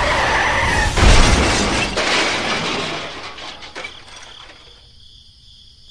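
Crash of a toy tractor into a toy train: a loud smash with breaking and shattering about a second in, a second hit a second later, then the clatter fades away.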